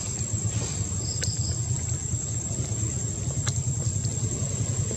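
Outdoor ambience: a steady low rumble under a constant high insect whine. A few short high chirps come a little after a second in, with two faint clicks.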